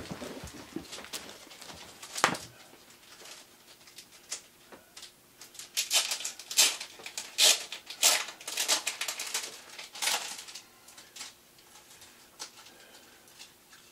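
Vinyl records and their paper sleeves being handled, rustling and clicking: a sharp knock about two seconds in, then a busy run of rustles and clicks from about six to eleven seconds in.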